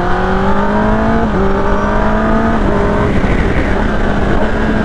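Kawasaki ZX-10R's inline-four engine accelerating through the gears: its pitch climbs, drops back at an upshift a little over a second in, climbs again and drops at a second upshift about two and a half seconds in, then settles into a steadier note with rising wind rush.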